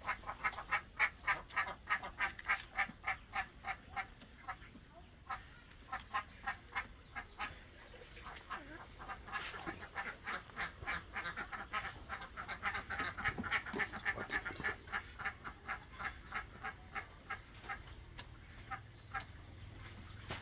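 Domestic ducks quacking in a rapid run, about three to four quacks a second; the calling thins out for a few seconds in the middle, then picks up again.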